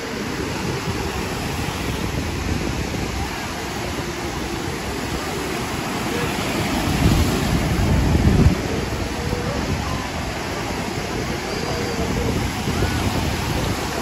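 Beach ambience: small waves washing on the shoreline and the scattered chatter of a crowd of beachgoers, with wind rumbling on the microphone, strongest about seven to eight seconds in.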